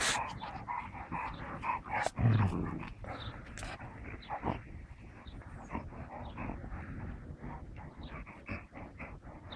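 A dog making short sounds in quick succession, with one louder low-pitched call about two seconds in.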